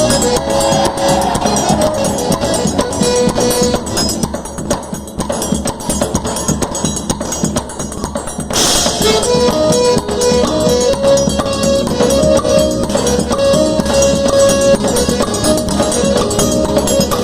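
Quadrilha junina music playing, an instrumental stretch with steady percussion under a melody of held notes; a short rushing burst about eight and a half seconds in.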